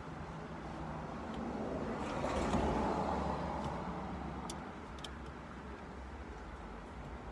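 A passing road vehicle: its noise swells to a peak about two and a half seconds in, then fades slowly over a low steady rumble. A few faint clicks.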